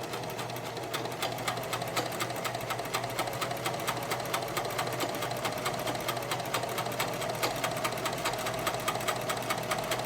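Necchi 537L sewing machine running steadily, sewing a zigzag stitch: a steady motor hum with rapid, even clicking from the needle strokes.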